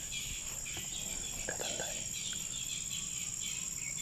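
Insects, crickets among them, chirping steadily: a constant high-pitched drone with a repeating, pulsing chirp just below it.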